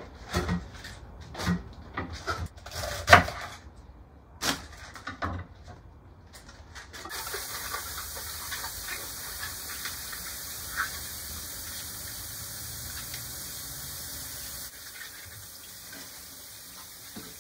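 Knocks and clatter of vegetables being handled at a stainless-steel kitchen sink, with one sharp knock about three seconds in, then a kitchen tap running in a steady stream over bok choy as it is rinsed. The water drops lower about fifteen seconds in.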